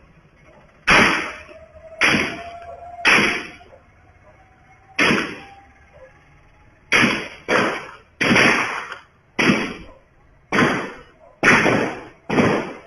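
A series of gunshots: about eleven sharp bangs, each with a short echoing tail, fired at irregular intervals, some in quick pairs.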